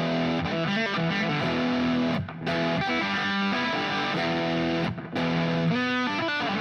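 Electric guitar with distortion playing E power chords with fills, in two phrases broken by short gaps about two seconds and five seconds in.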